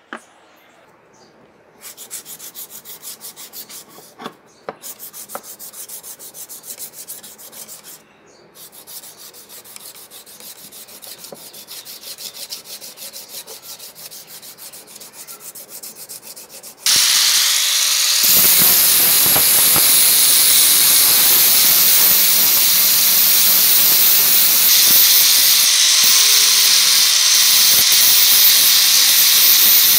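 Wooden hammer handle sanded by hand with quick back-and-forth rubbing strokes, stopping briefly twice. About 17 seconds in, an angle grinder starts grinding along the wood with a much louder steady hiss and high-pitched whine.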